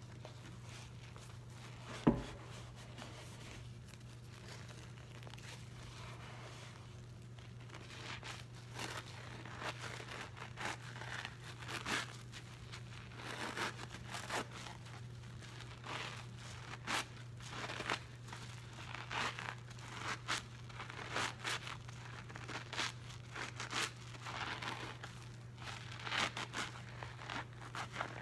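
Soap-soaked scrub sponge squeezed and wrung by hand in a bowl of dish-soap suds, giving irregular wet squelching and crackling of foam that grows busier from about eight seconds in. A single sharp knock comes about two seconds in, and a steady low hum runs underneath.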